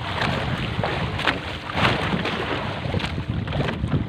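Wind rumbling on the microphone aboard a small fishing boat at sea, with water noise and a few short knocks.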